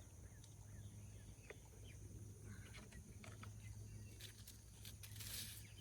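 Quiet outdoor garden ambience: faint, scattered bird chirps over a low steady rumble, with a brief rustle near the end.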